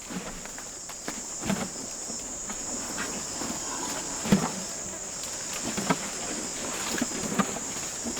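Insects chirring steadily in a high, continuous drone, with scattered soft knocks and rustles at irregular moments.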